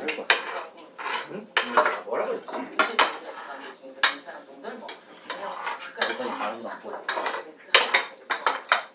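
Metal forks and spoons scraping and clinking against ceramic plates as several people eat, in an irregular run of sharp clinks and scrapes.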